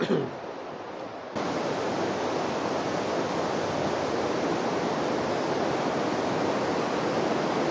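Fast river running high over rocks, a steady rush of white water that turns suddenly louder about a second and a half in.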